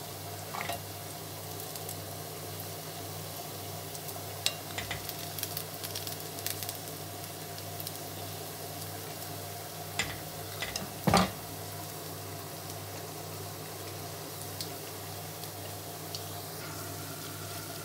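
Onion and gram-flour pakoras sizzling as they deep-fry in hot oil, with scattered clicks and knocks from a utensil against the pan, the loudest about eleven seconds in.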